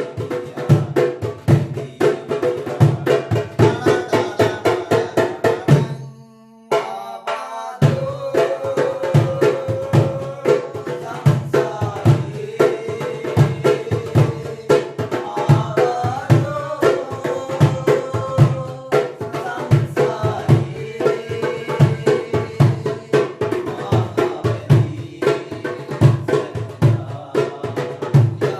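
Darabuka (goblet drum) played in a fast, dense rhythm over a melodic song accompaniment. The drumming stops for about a second and a half roughly six seconds in, then comes back in full.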